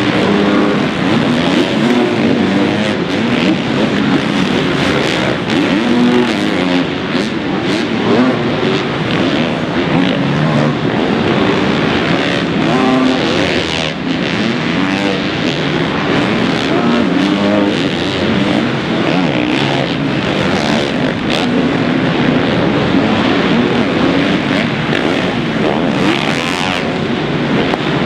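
Motocross bike engines revving hard and backing off over and over, the pitch rising and falling without a break.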